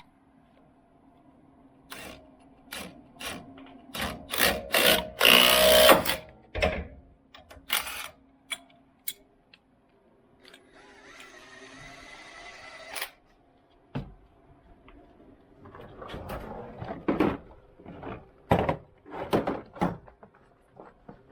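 Mechanic's hand tools and sockets clinking and clanking against metal, with a power tool whirring steadily for about two and a half seconds midway through.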